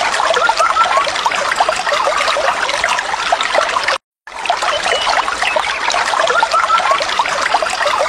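Stream water trickling and splashing over stones in a dense, steady patter, with a few short bird chirps. About halfway through, the sound cuts out for a moment and starts again.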